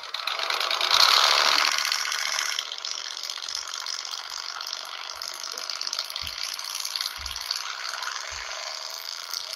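Lifted pickup truck doing a burnout, its rear tyres spinning on asphalt with a harsh continuous noise. The noise is loudest in the first couple of seconds, then holds steady.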